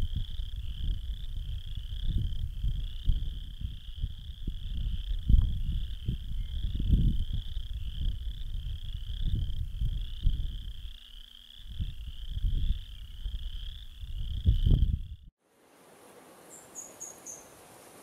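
A dense chorus of frogs keeps up a steady, pulsing high trill, over a loud, gusty low rumble of wind on the microphone. Both cut off suddenly near the end, leaving faint hiss and a few brief, high bird chirps.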